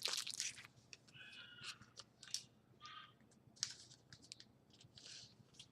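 Trading cards being handled and flicked through by hand: faint, scattered clicks and brief rustles of card stock.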